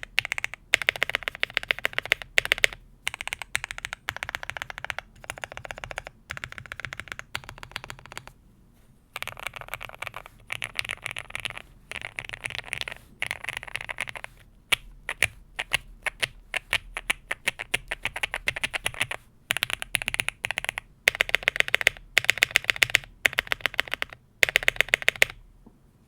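Fast typing on a Qwertykeys QK65 mechanical keyboard with lubed and filmed Gateron Oil King linear switches, an FR4 plate and GMK keycaps: quick runs of keystrokes broken by short pauses. Near the end there are several louder single key strikes.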